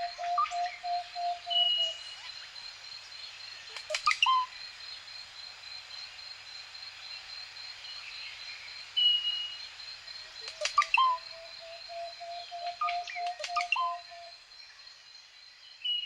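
Birds chirping and whistling: short whistled notes and clusters of sharp falling chirps, with a long held lower note at the start and another in the second half, over a steady high-pitched ringing tone.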